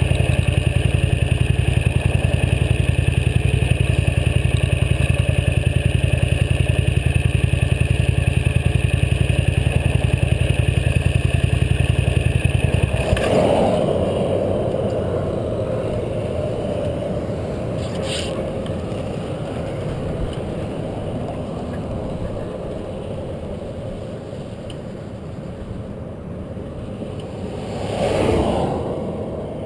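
Motorcycle engine running steadily at cruising speed, with wind rush, until about 13 seconds in, when the engine note drops away suddenly and only wind and road noise remain, fading slowly as the bike coasts. A brief whoosh rises and falls near the end.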